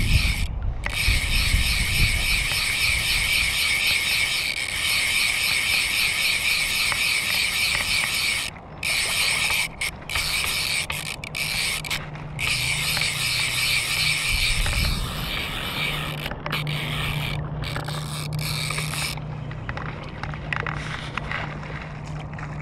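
Click-and-pawl fly reel (a Speyco) buzzing as the spool turns fast while an American shad is played on the line. It stops for short moments a few times, weakens in the second half and stops about 19 seconds in.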